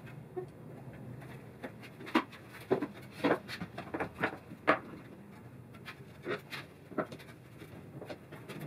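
One-handed bar clamps being set and squeezed tight on a wooden fence board, giving a scatter of sharp clicks and light wood knocks at uneven intervals.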